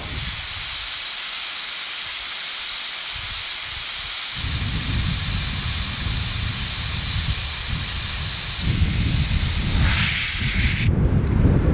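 Air hissing steadily out of a Jeep Cherokee XJ's off-road tyre through the valve stem with the core pulled, airing it down to about 10 PSI for the trail; the hiss cuts off near the end. Wind rumbles on the microphone from about four seconds in.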